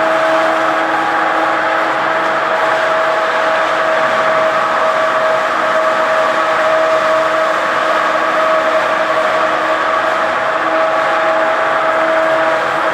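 A machine running steadily, a constant whine of several fixed pitches over a rushing noise, with no change in speed.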